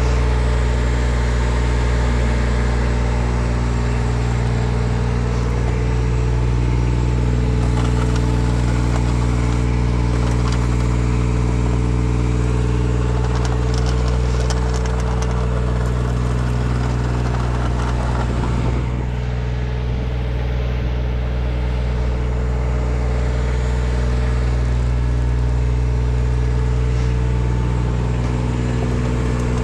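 An engine running steadily at a constant speed, with a brief dip in level a little past halfway.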